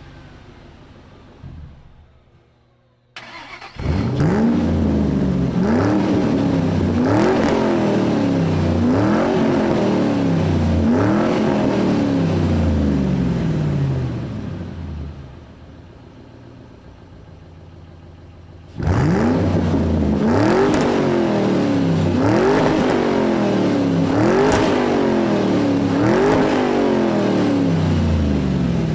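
Engine revved over and over in quick blips, each rising sharply in pitch and falling back, about one every one and a half to two seconds. The revving begins after a brief quiet gap near the start, drops to a quieter idle for a few seconds midway, then starts again.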